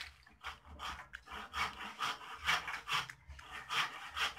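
Teflon thread-seal tape being pulled off its roll and wound around the threads of a plastic pipe fitting: a run of short noisy strokes, about three a second.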